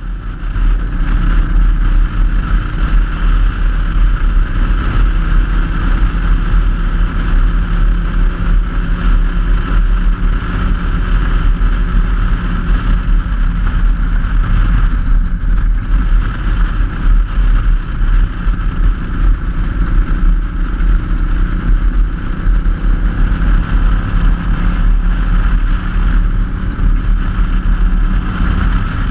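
Cruiser motorcycle's engine running steadily at road speed, heard from the saddle under a heavy low rumble of wind on the microphone.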